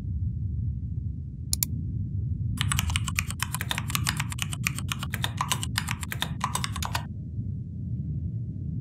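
Two quick mouse clicks, then about four seconds of rapid typing on a computer keyboard, over a low steady rumble.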